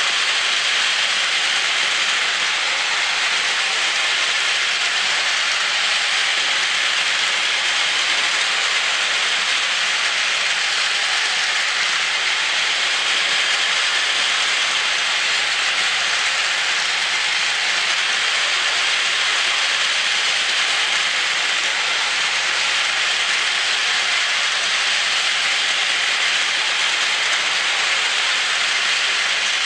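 Two battery-powered Plarail toy trains, E5 Hayabusa and E6 Komachi full sets, running together on plastic track: the steady, hissy whir of their small motors and gears and their wheels on the rails.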